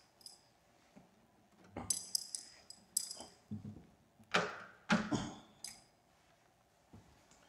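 Handling noise of an acoustic guitar being taken off and set down: light metallic clinks and jingles about two to three seconds in, then a few short knocks around the middle as the guitar is put down.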